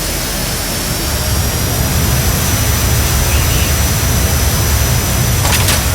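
Jet engine running steadily: an even rush of noise over a low rumble, with a thin high whine held above it. A few short clicks come near the end.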